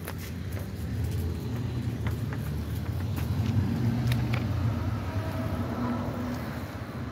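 A passing car: low engine and tyre rumble that swells to a peak about halfway through, then eases off.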